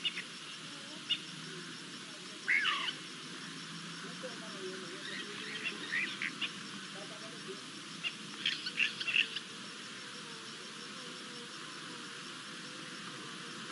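Wild birds calling over a steady hiss: scattered short chirps, one call sliding downward a few seconds in, and two quick clusters of calls near the middle and a little after.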